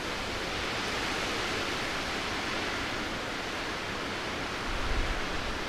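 Steady rushing of wind from the snowstorm, with an uneven low rumble of gusts buffeting the microphone.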